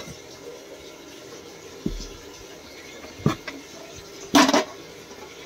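Aluminium idli maker being taken out of its cardboard box and its idli plate handled: a dull knock, a sharp click, then the loudest sound, a brief metallic clatter, near the end.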